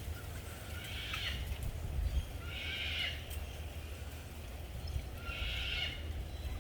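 An animal call repeated three times, each a short, high, raspy call about half a second long, spaced a couple of seconds apart, over a steady low rumble.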